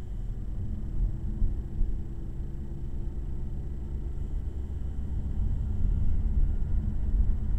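Car engine and road noise heard from inside the cabin while driving, a low steady rumble that grows a little louder over the last couple of seconds.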